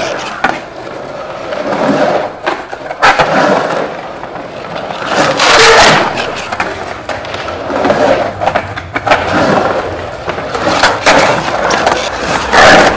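Skateboard wheels rolling on the concrete of an empty swimming pool, the rolling noise swelling and fading as the rider carves up and down the walls, with a few sharp knocks from the board.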